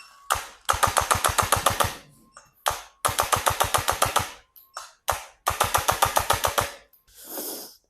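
Three bursts of fast, even knocking, about eleven knocks a second, each lasting about a second and a half, from a mobility treatment on a chiropractic patient.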